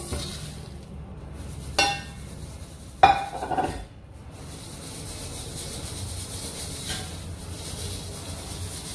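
Roasted peanuts and garri poured from a steel pot into a stainless steel colander, the metal clanking twice, loudest about three seconds in. Then a steady fine hiss as the garri grains are shaken through the colander's mesh into the steel pot below, sieving them off the peanuts.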